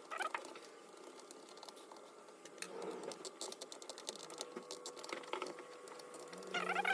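Scattered light clicks and taps of a screwdriver and small parts on a hammer drill's housing as it is taken apart.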